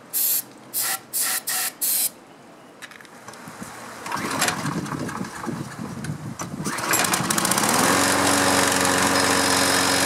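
Four short hisses of starting fluid sprayed into the carburetor, then the hot Toro Recycler mower's engine cranks, catches about six and a half seconds in, and rises to a steady run. Starting on the fluid points to a fuel fault rather than the ignition coil, suspected to be a slightly gummed-up carburetor.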